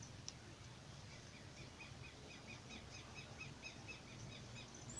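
Near silence with a faint, quick run of high chirps, about six a second, for a couple of seconds in the middle, like a small bird calling in the background.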